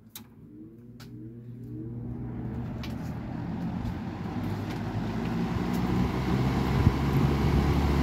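Vintage Hoover 20-inch box fan with an old McMillan two-speed motor starting up on high speed. A click at the start, a motor hum rising in pitch over the first couple of seconds, then the rush of air from the blades growing steadily louder as it comes up to speed.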